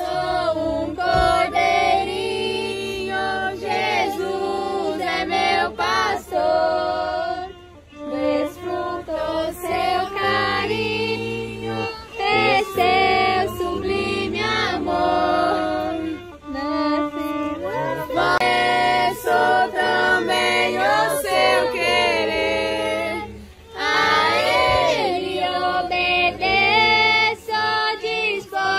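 Group of voices, children and women among them, singing a Portuguese Christian song together, in phrases with short breaks between them.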